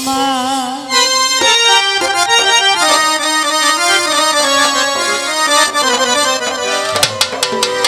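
Instrumental break in a Bengali baul song: a harmonium plays a reedy melody with held notes, after the singer's wavering held note ends about a second in. A few sharp drum strikes come near the end.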